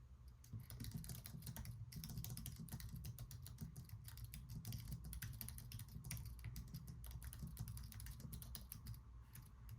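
Fast touch-typing on an Apple Magic Keyboard's low-profile scissor-switch keys: a quiet, rapid run of light key clicks that starts about half a second in and pauses briefly near the end.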